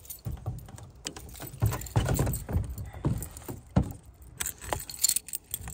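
Footsteps crunching on icy, frozen ground, uneven and irregular, with a jingle of keys.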